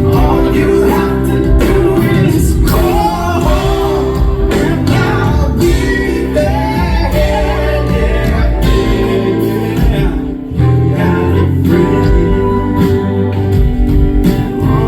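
Live band music with singing over a full band.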